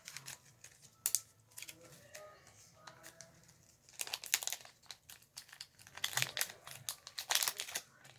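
Trading card promo packaging crinkling and tearing as it is opened by hand, in short irregular bursts with a few louder flurries.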